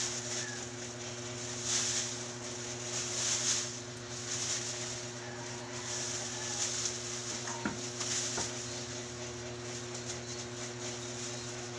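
Rustling and scraping in repeated short bursts, roughly one every second or so, as biodegradable kitchen scraps are gathered and handled, over a steady low hum. Two faint clicks a little past the middle.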